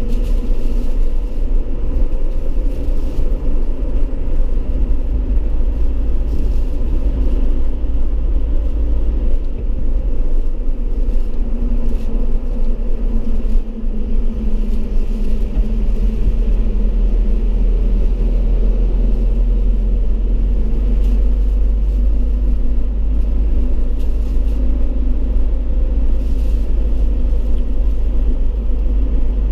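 Steady low rumble of engine and road noise inside the cabin of a 2018 Mitsubishi Triton HDX pickup on the move.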